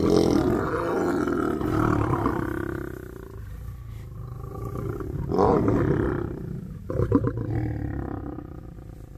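Lions snarling. A long snarl comes first, a second bout follows about five seconds in, and a short stuttering snarl comes about seven seconds in.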